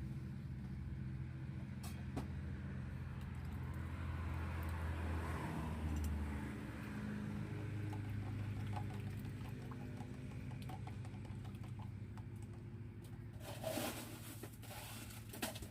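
A motor running steadily with a low hum, its pitch shifting a little about six seconds in, and a few short clatters near the end.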